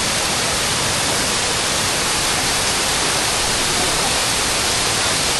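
Waterfall pouring: a steady, loud rush of falling water that holds even throughout.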